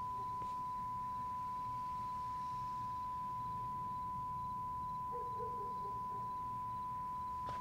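A steady, unchanging single-pitched beep from a television set showing the broadcast test card after the programmes have ended.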